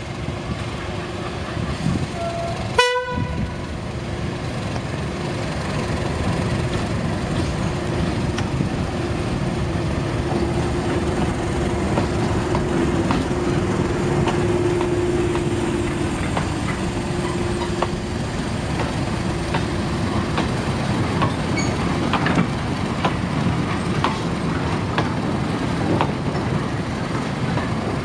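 BR Class 31 diesel-electric locomotive giving a short horn toot about three seconds in, then running past hauling a short goods train, its engine growing louder as it draws level. Wagon wheels click over the rail joints as the train passes.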